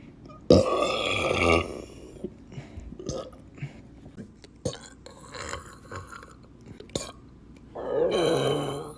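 Two big, deep burps from a person: one about half a second in that lasts about a second, and another near the end. Faint small clicks come in between.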